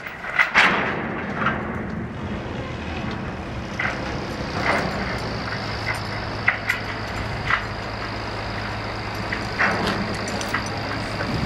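An engine running steadily, with scattered sharp knocks and clanks from work on the steel deck.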